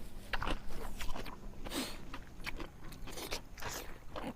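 Close-miked eating sounds of someone eating fish curry: wet chewing and lip smacks at an irregular pace, a few a second.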